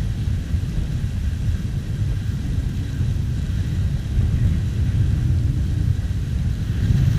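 Wind buffeting an action camera's microphone while skiing downhill: a steady low rumble.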